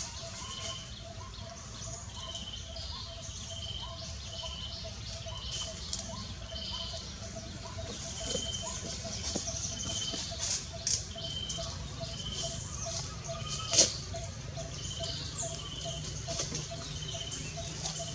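Birds calling over and over in the background: a low note about three times a second and a higher note a little more than once a second, over a steady low outdoor hum. A sharp click about three-quarters of the way through.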